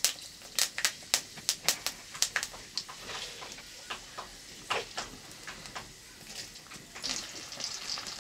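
Hot oil in an iron kadai over a wood fire, popping and crackling sharply several times a second for the first couple of seconds, then settling to a soft sizzle. About seven seconds in, a louder, fuller sizzle starts as food goes into the oil.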